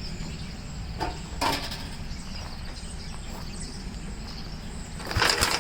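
A 1969 Gravely walk-behind tractor's single-cylinder engine being cranked over without firing: a short burst about a second in and a longer one of rapid strokes near the end. The engine is getting no spark from its magneto. Crickets chirp steadily under a low hum.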